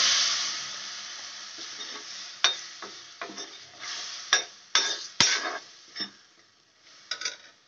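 Water hitting hot oil and fried chilli powder in a metal pan, sizzling loudly and dying away over the first couple of seconds. A steel spoon then stirs the sauce, with a string of short scrapes and clicks against the pan.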